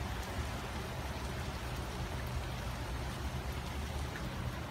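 Heavy rain falling steadily on pavement and lawn, an even hiss with a low rumble underneath.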